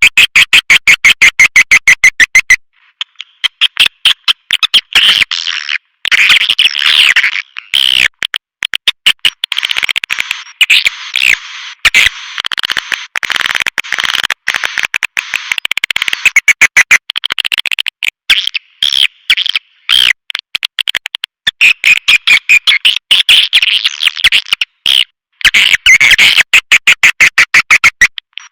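Swiftlet caller recording: edible-nest swiftlet twittering calls, fast runs of sharp chirps and ticks repeating in bursts with short gaps.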